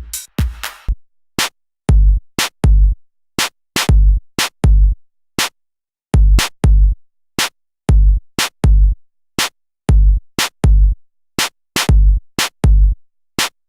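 Background music: a sparse electronic drum-machine beat of deep kicks and sharp claps with gaps between.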